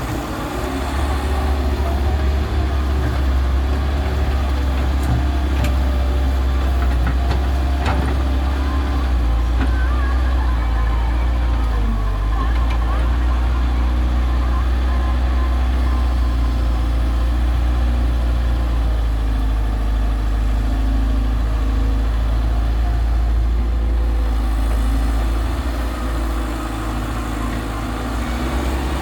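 Heavy diesel engines of an excavator and a tractor running steadily with a deep, low hum. A few light clicks and knocks come between about five and eight seconds in.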